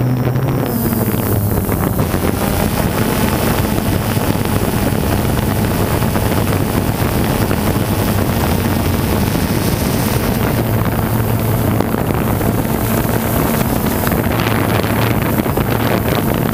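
Quadcopter drone's propellers humming steadily, picked up by the camera mounted on the drone itself, with wind rushing over the microphone.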